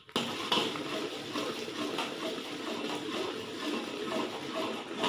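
Thin almond paste and sugar syrup being stirred with a metal spoon in a brass pan: a steady wet sloshing with light scrapes of the spoon against the pan as the mixture cooks down.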